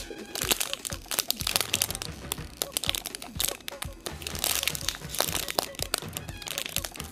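Clear plastic packaging crinkling and crackling as it is handled, over background music.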